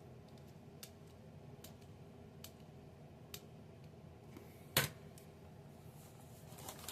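Plastic Lego bricks being handled and pressed together: a few faint clicks, then one sharper snap nearly five seconds in.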